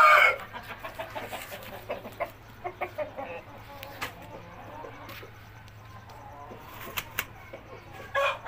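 Rooster crowing: one crow ends just after the start and another begins near the end. In between come softer clucks and a few sharp clicks.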